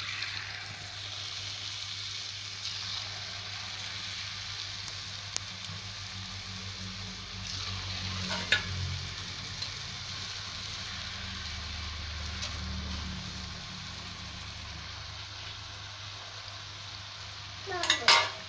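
Strips of rice-flour murukku dough deep-frying in hot oil in an iron wok, a steady bubbling sizzle. A sharp knock comes about eight seconds in, and a louder noise near the end.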